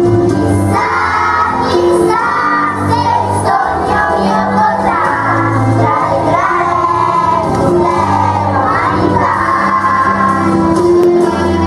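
Children's choir singing a song together over instrumental accompaniment with sustained bass notes.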